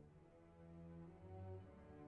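Soft background music: slow, sustained low orchestral-style notes, brass or bowed strings.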